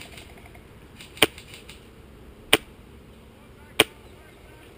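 Custom VFC M27-bodied airsoft rifle firing four single shots, about one every 1.3 seconds, each a sharp crack.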